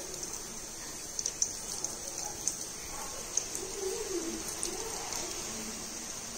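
Fennel and cumin seeds frying in hot oil in a metal pot: a steady sizzle with scattered small pops and crackles as the seeds splutter.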